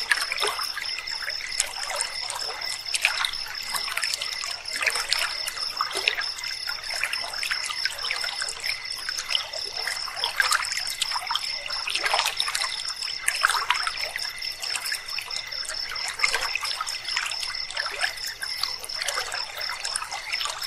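River water trickling and bubbling, with a steady, high-pitched pulsing trill of night insects over it.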